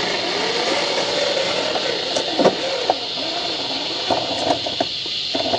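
Brushed electric motor and geared drivetrain of a 1:10-scale Axial SCX10 II RC crawler whining, its pitch rising and falling with the throttle, with several sharp clicks and knocks from the middle on as the tyres and chassis climb over rock.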